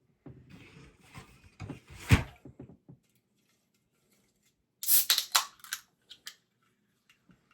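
Rustling and handling noise with one sharp knock, then, after a pause, a quick run of sharp crackling clicks.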